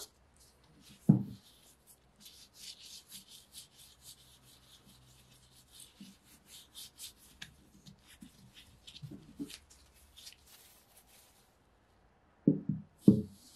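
Rubber-gloved fingers rubbing a wax-like paste over an iron axe head: a run of short, light rubbing strokes. A dull knock about a second in and two louder knocks near the end as the head is handled on the wooden table.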